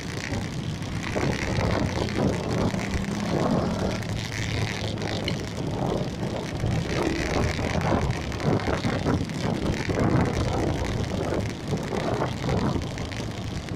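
Engine of the vehicle carrying the microphone running steadily in moving street traffic, with a low hum, and wind buffeting the microphone in irregular gusts.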